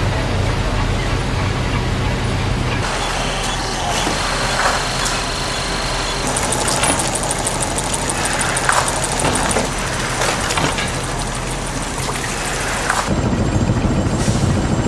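Heavy textile-factory machinery running with a loud, steady drone, changing abruptly several times as shots cut between machines; a rapid clattering rides over it through the middle.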